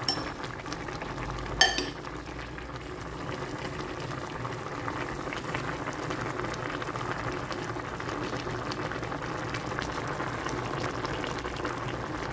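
Pot of tinola, chicken soup with spinach, at a steady boil, bubbling throughout. Near the start, two sharp clinks of a ladle against the pot.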